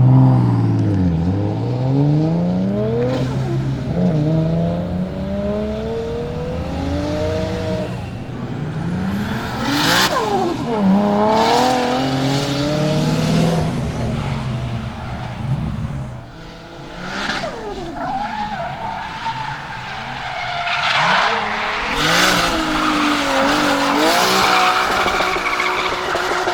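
The Nissan Silvia S14's swapped-in RB26DET 2.6-litre turbocharged straight-six revs up and drops back again and again while the car drifts. Its tyres squeal and skid throughout, loudest in the last few seconds.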